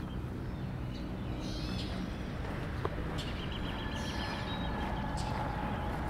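Footsteps of a person walking on pavement over a low steady outdoor rumble, with a bird's rapid trill a little after halfway.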